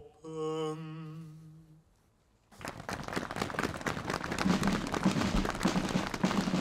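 A man's voice holds a last long note for nearly two seconds; after a short silence an audience starts clapping, the applause building a little.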